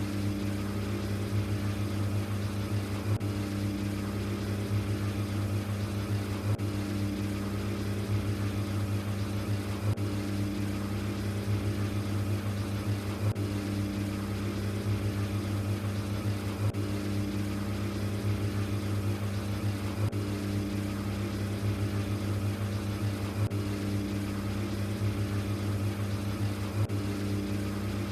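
LG ThinQ washing machine running on its Quick 15 cycle: a steady motor hum that starts abruptly, with a higher note swelling about every three and a half seconds.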